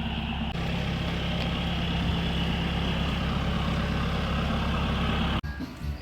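Motor vehicle engine running at a steady, unchanging speed, its low hum constant until it cuts off abruptly about five seconds in.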